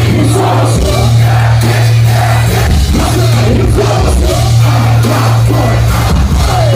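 Loud live hip-hop concert audio recorded from the crowd, dominated by a heavy booming bass beat, with rapped vocals and crowd voices over it; the sound is distorted and near full scale.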